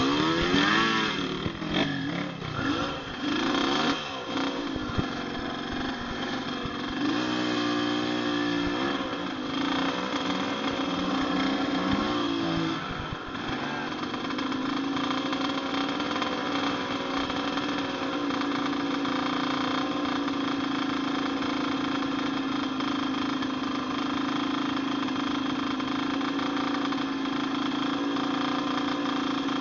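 Off-road dirt bike engine revving unevenly, then settling at about thirteen seconds in to a steady idle.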